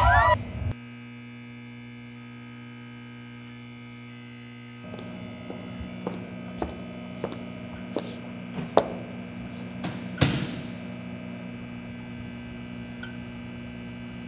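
Steady electrical hum made of several held tones, shifting in character about five seconds in, with a scattering of short light taps over the next few seconds.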